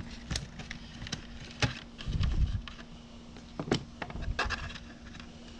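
Scattered light clicks and knocks of hand work on the lathe's electronics housing and wiring, with a duller thump about two seconds in.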